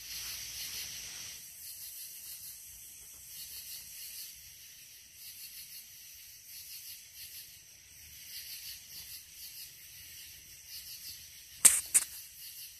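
Night insects chorusing in a steady, high, pulsing drone. Two sharp clicks about half a second apart come near the end and are the loudest sounds.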